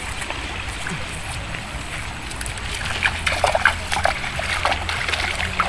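Feet wading through a shallow river, splashing and sloshing in the water over the steady noise of the flowing stream; the splashes come thicker about halfway through.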